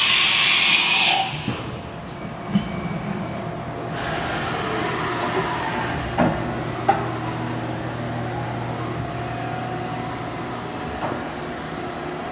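Haas VF-E CNC vertical machining center running: a loud hiss that cuts off about a second and a half in, then a steady hum with a few sharp clicks.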